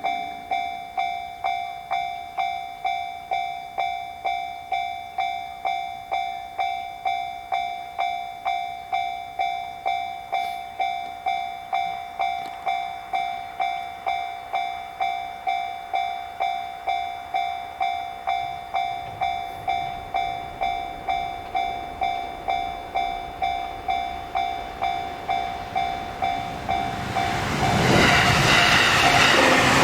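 Japanese level-crossing warning alarm ringing its 'kan-kan' tone about twice a second, even and unchanging. About 27 seconds in, the noise of an arriving train swells up loud over the alarm.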